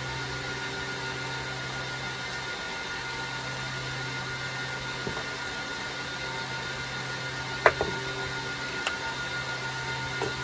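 Steady workshop hum and hiss, with one sharp metallic click about three-quarters of the way through and a couple of lighter clicks after it, as a steel caliper is handled at the workbench.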